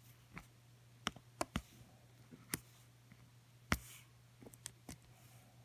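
Small sharp plastic clicks and taps, about nine at irregular intervals, as a diamond-painting drill pen picks square resin drills off a plastic tray and presses them onto the sticky canvas. The loudest tap comes about two-thirds of the way in.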